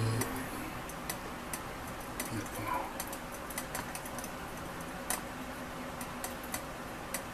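Irregular light ticks and clicks, a few a second, over a faint steady hiss from a running herb steam distiller.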